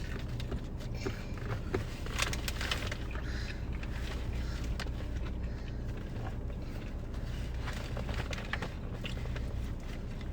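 Chewing and crunching on fried food, with scattered small clicks and crackles, over the steady low hum of a car engine idling.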